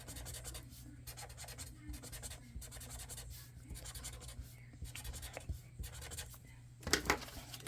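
Pen scribbling on paper in quick, repeated scratchy strokes, colouring in boxes on a paper savings-challenge sheet, with a couple of louder strokes near the end.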